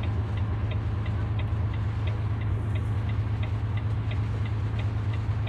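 Steady low hum of a vehicle driving on a rain-wet road, heard from inside the cabin, with the indicator relay ticking evenly about three times a second.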